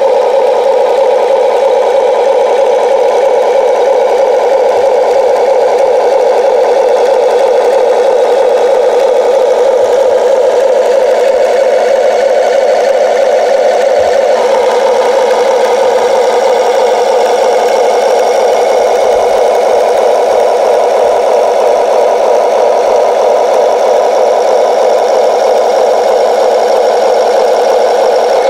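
Simulated diesel excavator engine idling, played by the Amewi 22501 RC excavator's onboard sound module through its small speaker: a steady, thin engine sound without bass that switches on suddenly.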